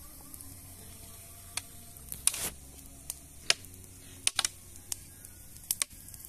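Irregular light clicks and knocks, about a dozen, from long bamboo poles being carried and handled, over a faint low hum.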